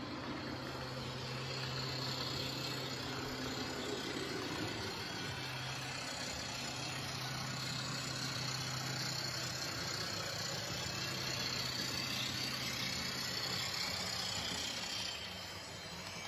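Model train running on the layout's track: a steady rolling noise of wheels on rails with a low motor hum, which fades out near the end.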